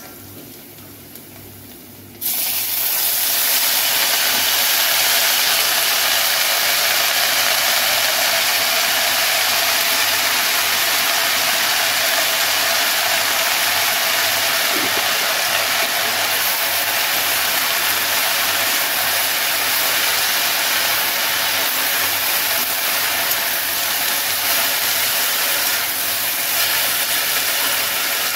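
Chopped leafy greens frying in hot oil in a steel kadhai: a loud, steady sizzle that starts suddenly about two seconds in.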